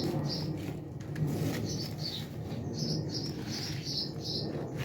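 A small bird chirping repeatedly: short high chirps, some dipping slightly in pitch, coming in quick groups of two or three, with a few faint clicks.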